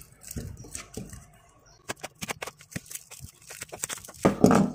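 Clear plastic wrap being crinkled and peeled off a small Beyblade top by hand: a run of sharp crackles, with a louder rustle near the end.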